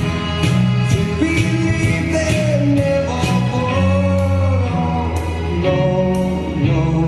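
A song playing back for the dancers: a singing voice over instruments, with a steady beat.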